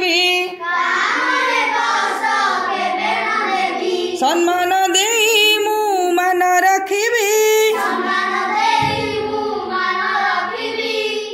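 Children singing an Odia children's poem as a chanted, sing-song melody, phrase after phrase with short breaks.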